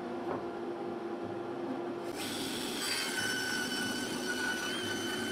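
Table saw running, its blade cutting through an end-grain chopping board from about two seconds in, with a steady high whine over the cutting noise.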